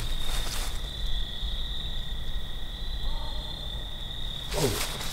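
Crickets trilling: one steady, unbroken high chirr carries on through the night woods. Near the end comes a short rustling noise with a low falling tone.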